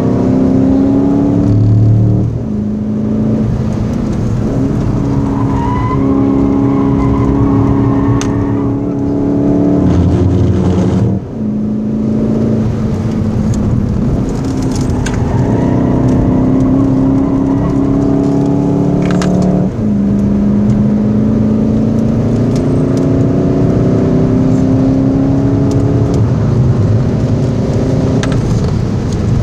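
Volkswagen Golf 7 GTD's four-cylinder turbodiesel accelerating hard, heard from inside the cabin. Its pitch climbs steadily through each gear and drops sharply at the upshifts: about 2 seconds in, about 11 seconds in, and about 20 seconds in.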